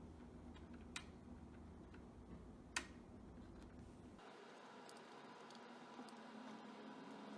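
Near silence with faint, sharp plastic clicks from laptop parts being handled during reassembly: a weak click about a second in and a louder one nearer three seconds in, then a few fainter ticks.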